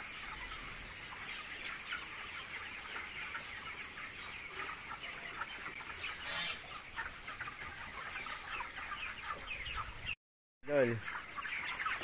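A large flock of broiler chickens, about 26 days old, making a steady mass of overlapping soft chirps and clucks. All sound drops out briefly near the end.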